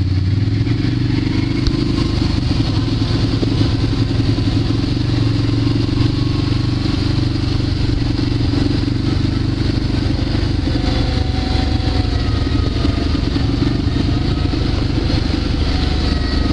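ATV (quad bike) engine heard from on board, running steadily under way on a dirt track without sharp revving.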